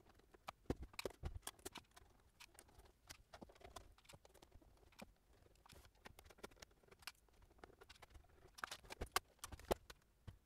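Faint, scattered clicks and taps of a screwdriver working screws out of the plastic case of a Roland MT-200 synthesizer, with small knocks as the unit is handled and turned over. A louder cluster of clicks and knocks comes near the end as the top cover is lifted off.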